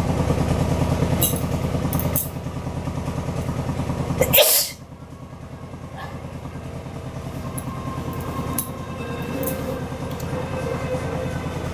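A woman sneezes once, loudly, about four and a half seconds in, over a steady, evenly pulsing engine drone.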